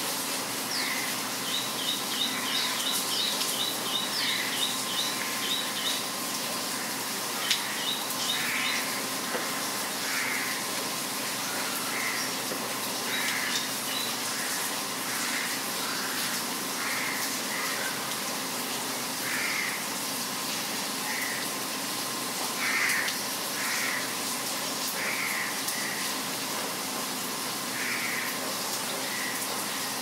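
Steady rain hiss with wild birds calling over it. A quick run of short, high, repeated notes comes early, about three a second for some four seconds, with brief runs again later. Lower calls recur every second or two throughout.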